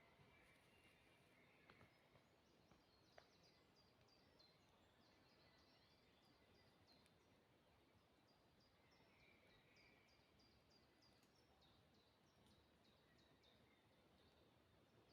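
Very faint forest ambience: a steady soft hiss with a small bird repeating short, high chirping notes throughout. A couple of soft clicks come about two and three seconds in.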